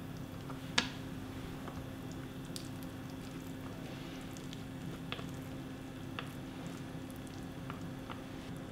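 Soft, sticky squishing of a wet rice paper wrapper being rolled by hand around vegetables on a wooden board, with a few small clicks, the sharpest about a second in. A low steady hum sits underneath.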